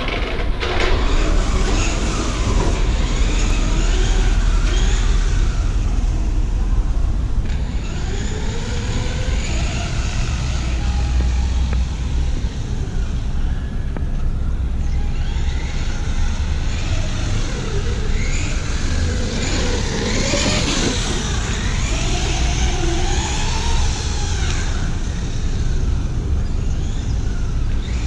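Electric motor of a Remo Hobby Dinosaurs Master 5 RC monster truck whining, rising and falling in pitch as the truck speeds up and slows down on concrete, over a steady low rumble.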